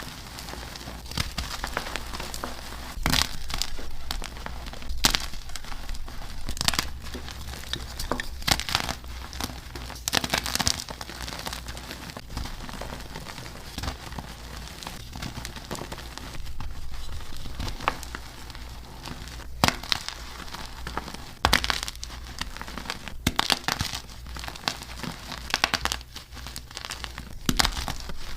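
Blocks of dyed, reformed gym chalk being crushed and crumbled: irregular sharp crunches, a few seconds apart, with softer crackling and powdery crumbling between them. A steady low hum runs underneath.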